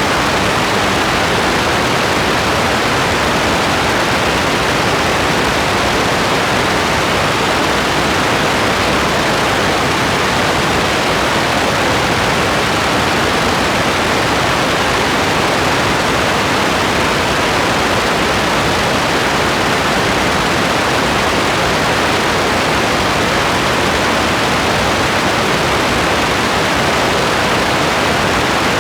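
Steady rain: a dense, even hiss without change.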